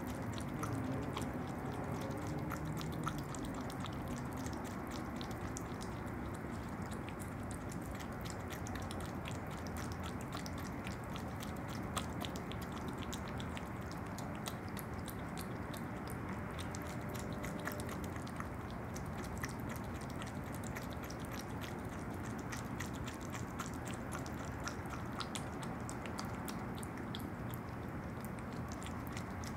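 Opossum eating yogurt: continuous chewing with a dense, steady run of small clicks.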